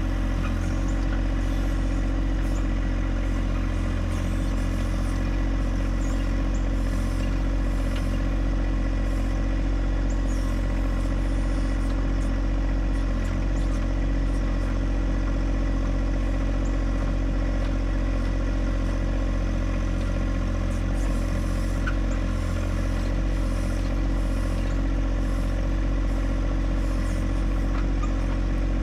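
John Deere 1025R compact tractor's three-cylinder diesel running steadily as its 260B backhoe digs into hard-packed garden ground, with a few light clanks.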